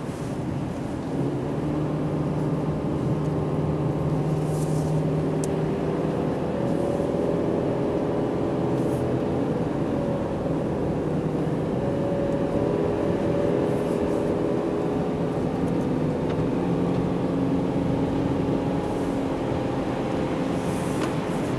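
Subaru XV's flat-four engine pulling uphill under steady load, with continuous road and tyre noise. Its note shifts up and down in pitch every few seconds.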